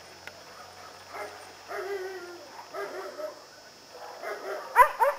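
A large dog barks twice in quick succession near the end, short and loud. Softer pitched calls come and go in the seconds before.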